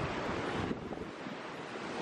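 Ocean surf breaking and washing over the shallows, with wind on the microphone. The sound drops a little under a second in.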